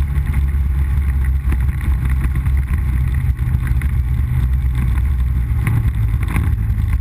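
ATV engine running with a steady low note as it rides over a dirt trail, with scattered knocks and rattles from the rough ground.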